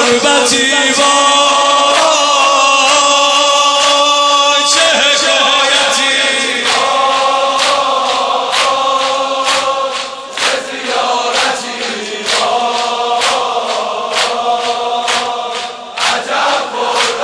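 Mourning chant (noha) of voices in unison on long held notes. From about seven seconds in it is joined by rhythmic chest-beating (sineh zani) slaps, about two a second.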